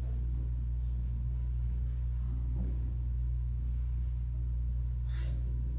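Steady low hum, with faint handling sounds and a brief clink about five seconds in.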